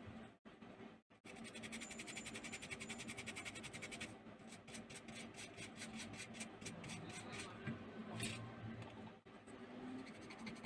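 Rapid rhythmic scratching as a phone circuit board is scrubbed clean with thinner around a newly fitted display connector. The strokes are quicker at first, then about five a second, with one short scrape near the end.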